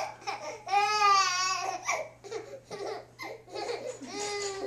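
Baby laughing and squealing: a long, high, wavering squeal about a second in and another shorter one near the end.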